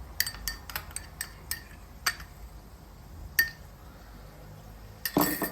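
A metal teaspoon clinking against kitchenware while spice is measured out: a quick scatter of light clinks in the first second and a half, then single clinks about two and three and a half seconds in. A short, noisy scrape comes just before the end.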